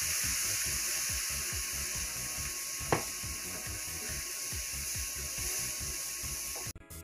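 Water hitting a hot skillet of browned onions and seasoning, sizzling with a steady hiss that slowly dies down as it is stirred into gravy with a wooden spoon. A single sharp knock comes about three seconds in. Near the end it cuts suddenly to background music.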